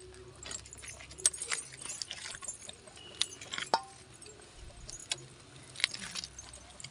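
Irregular sharp clicks and knocks of a curved knife cutting raw chicken pieces, the blade tapping against a wooden log used as a chopping block.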